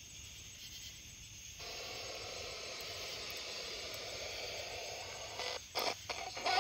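Radio static hiss from a spirit box, a radio sweeping through stations, switching on abruptly about a second and a half in and running steadily, with a few short louder bursts near the end.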